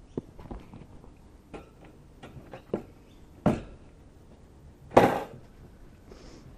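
A series of irregular knocks and clunks, about eight at uneven spacing, with the loudest about five seconds in.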